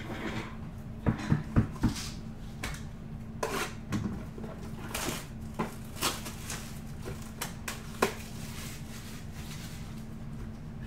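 Clear plastic shrink wrap crinkling and tearing as it is stripped from a trading-card hobby box, after a few knocks as the box is handled. A steady low hum runs underneath.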